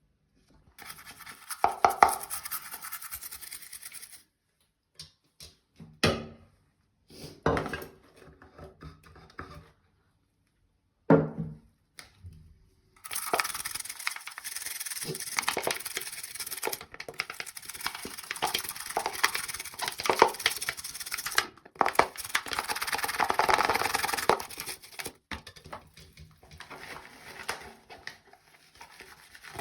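Scrubbing with a brush on coffee maker parts in several spells, with a few separate knocks from parts being handled and set down.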